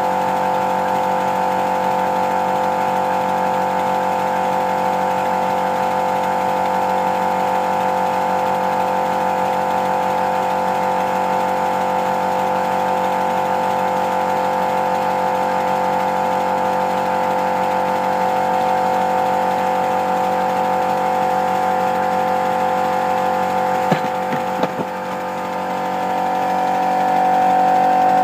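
5-inch gauge Polly Trojan model locomotive running fast on compressed air with its wheels spinning free off the track: a steady mechanical running hum of cylinders, rods and wheels. A few clicks come near the end.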